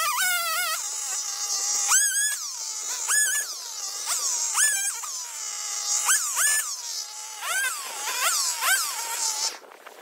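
Gas chainsaw revving again and again as it cuts brush limbs into short pieces, about ten throttle bursts that each climb fast and then wind back down. It cuts off suddenly near the end.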